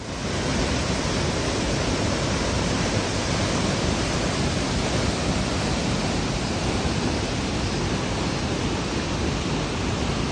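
Waterfall and river water rushing in a steady, even wash of noise.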